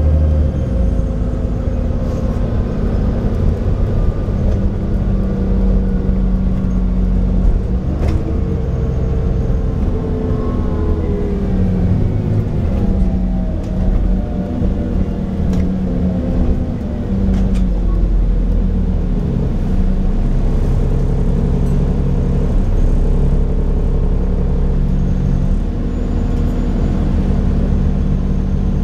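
Cummins Euro4 diesel engine of an Alexander Dennis Enviro400 double-decker bus running under way, with its turbocharger whistling. The engine note and whistle rise and fall as the Voith automatic gearbox changes gear, with a whistle gliding up and then down in the middle and a few sharp knocks.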